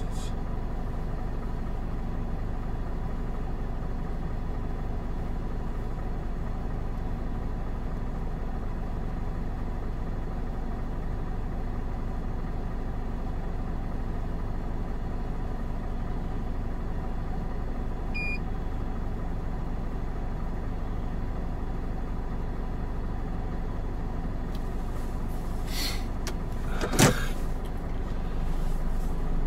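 Truck engine idling with a steady low hum. About 26 seconds in there are a few clicks, then a single sharp knock.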